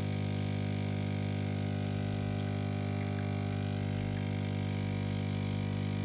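Siemens EQ500 bean-to-cup coffee machine's pump running a steady, deep hum as it flushes water through the brewing head in its rinse cycle.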